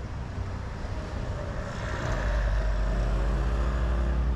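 A motor engine running close by, with a deep rumble that grows louder about two seconds in.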